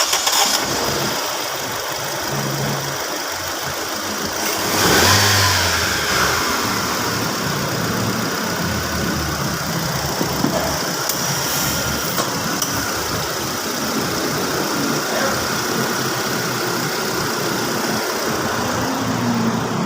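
Nissan Almera's petrol engine idling steadily just after starting, with one brief rev about five seconds in. It runs without stumbling or hiccuping.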